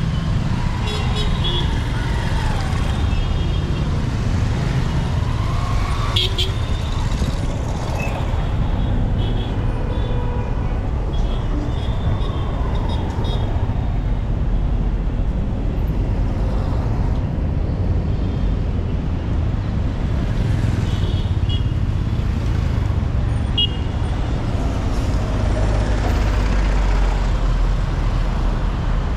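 Street traffic: cars passing with a steady low rumble.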